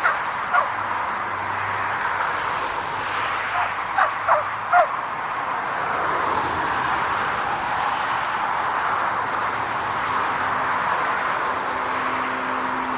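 Steady rushing jet-engine noise of an airliner at the airport. A few short, high animal calls come about four seconds in, and a faint steady hum joins near the end.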